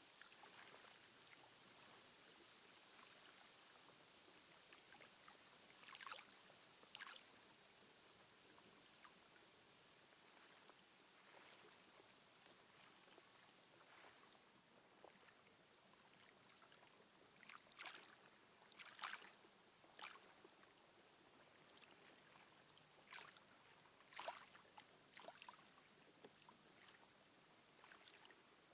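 Faint lake water lapping, with a soft hiss and several small, sharp splashes at uneven intervals, clustered around a quarter of the way in and again in the second half.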